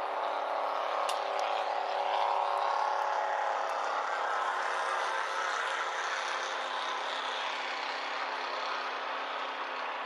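Steady engine drone that sounds like an airplane, swelling about two seconds in and slowly easing off over the following seconds.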